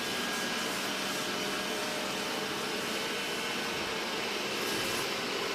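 Xiaomi robot vacuum cleaner running with a steady, even whir.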